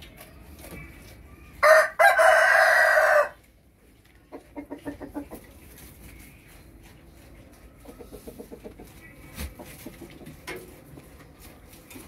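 A rooster crows once, loudly, about two seconds in: a short first note, then a long held one. This is followed by two runs of quick clucking.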